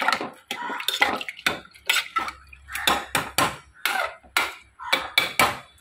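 Metal spoon clinking and scraping against a steel pressure cooker pot as spices are added and stirred in, about four sharp knocks a second at uneven intervals.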